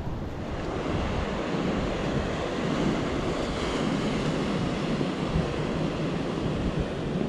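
Steady wind rushing over the camera microphone, mixed with the wash of the sea.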